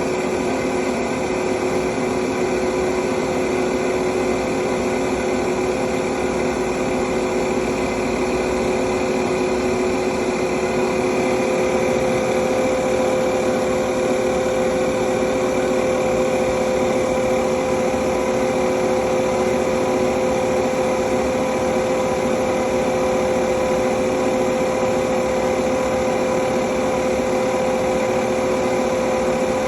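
Jet JTM-4VS variable-speed vertical milling machine with a three-phase motor, running steadily: an even mechanical hum carrying two steady mid-pitched tones, unchanging in speed.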